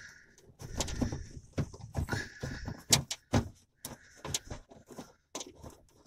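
Plastic door-handle parts being worked into a car door by hand: irregular clicks and knocks, the sharpest about three seconds in, with a few short squeaky rubs of plastic on plastic.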